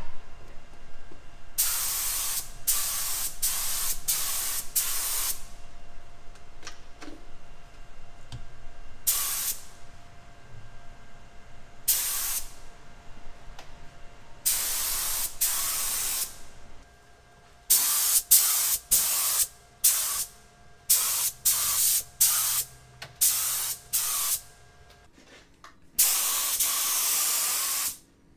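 Gravity-feed paint spray gun running on compressed air, spraying a fine fog of hypochlorous acid disinfectant. It hisses in many separate trigger pulls: most are short bursts of under a second, a few last one to two seconds, and the gaps between them are quiet.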